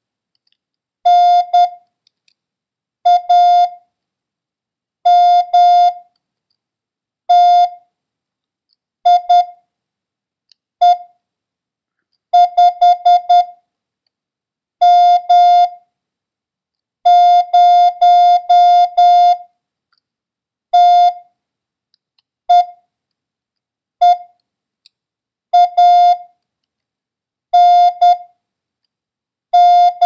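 Morse code practice tone: a steady beep keyed in short dits and long dahs, with widely spaced characters about two seconds apart. It sends a random-run copying drill: N, A, M, T, I, E, 5, M, 0, T, E, E, A, N, M.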